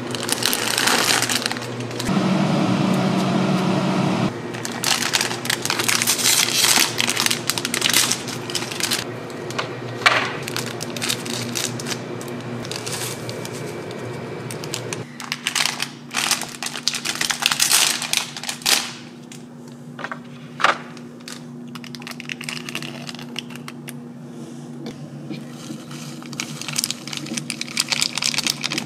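Plastic packaging of Ottogi Sesame Ramen crinkling and rustling as packets are handled on a shelf. Seasoning sachets are then torn open and shaken over dry noodles in a paper bowl, giving irregular crackles and a few sharp clicks over a steady low hum.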